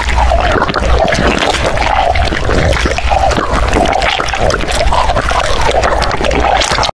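Instant noodles being slurped and eaten close to the microphone: loud, continuous wet slurping with many small clicks, over a low rumble.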